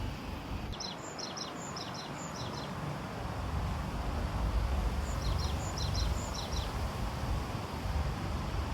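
Strong wind buffeting the microphone with a steady low rumble. A small bird calls over it in two short series of high, quick chirps, about a second in and again about five seconds in.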